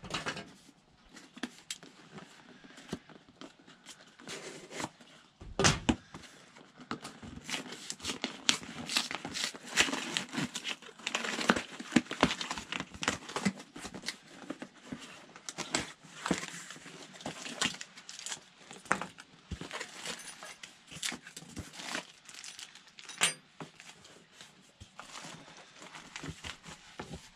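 Cardboard box being opened by hand: irregular crinkling, tearing and scraping of cardboard and packaging, with a few sharper snaps.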